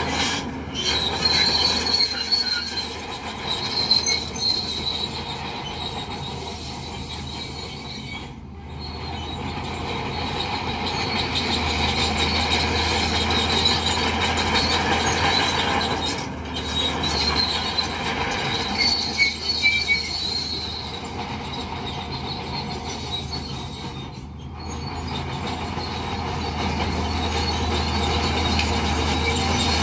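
Bulldozer running under load, its diesel engine a steady low note under the high-pitched squeal and clank of its steel crawler tracks.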